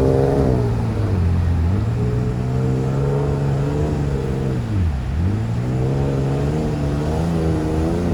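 Off-road 4x4's engine revving hard under load, its pitch dropping and climbing back up several times: about a second in, around five seconds in, and again near the end.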